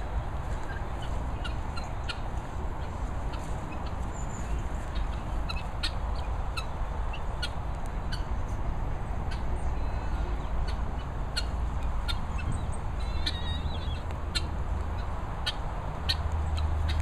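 Short, sharp calls from domestic fowl, repeated irregularly with a quick run of calls about two-thirds of the way through, over a steady low rumble.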